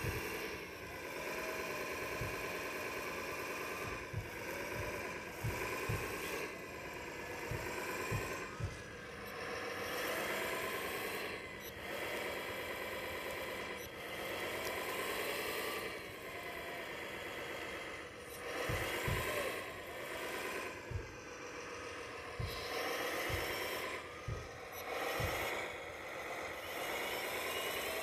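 1/14-scale RC excavator's electric motors and gears whining, the pitch rising and falling as the boom, arm and bucket move, with occasional low knocks.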